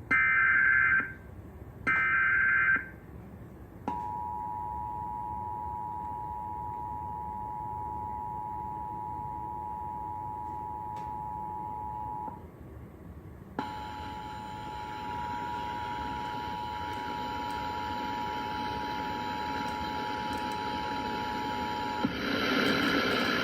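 Emergency Alert System test tones: two roughly one-second bursts of shrill digital header data, then the EAS two-tone attention signal (853 and 960 Hz), steady for about eight seconds. The attention signal cuts out, then sounds again for about eight more seconds over a faint hiss from another relaying station.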